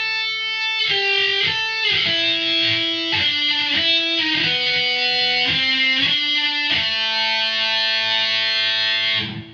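Electric guitar playing a single-note lead line, a run of notes picked one after another on the middle strings, ending on a long held note.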